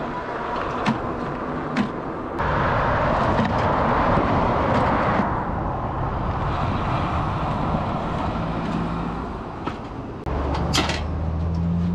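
Riding noise from an electric bike on pavement: wind rush and tyre noise at a handlebar-mounted camera's mic, with a few sharp rattles and clicks. From about two and a half seconds in, a louder rush lasts nearly three seconds, like a car going by. Near the end, as the bike stops, a low steady hum starts suddenly.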